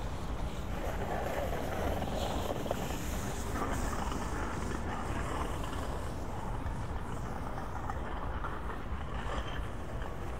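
Downtown street traffic: motor vehicles running and passing, a steady low rumble of city noise.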